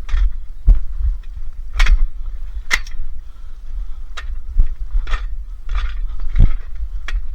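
Irregular clanks and knocks of scrap being handled and loaded onto a truck, over a steady low rumble.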